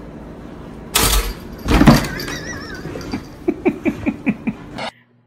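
A sudden loud clatter about a second in and a heavier bang just before two seconds, then a short wavering cry and a run of quick, falling, laugh-like pulses.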